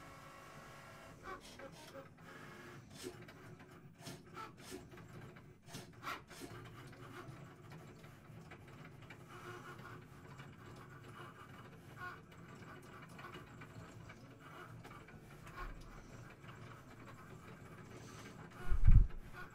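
Cricut Maker cutting machine running a test cut in cardstock: a steady low motor hum as the carriage moves the blade across the mat, with scattered small clicks. One heavy low thump near the end.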